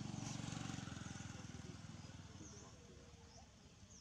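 A small engine running with a fast, even pulse, loudest at the start and fading away over the first two to three seconds. Faint, short, high chirps repeat through it.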